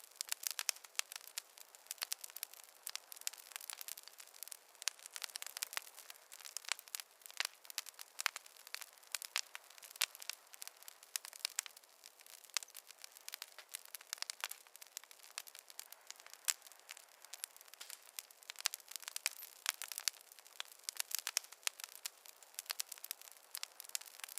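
Wood fire crackling in a fireplace: a dense, irregular stream of small pops and snaps without any low rumble.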